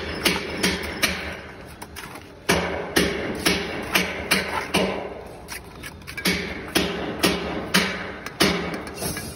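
Background music with a steady thumping beat, about two beats a second, dropping out briefly twice.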